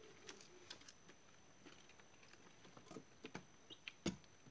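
Young chicks pecking at feed in a metal feeder tray and on the litter: faint, scattered light taps and clicks, with a couple of short peeps about three-quarters of the way through and one sharper click near the end.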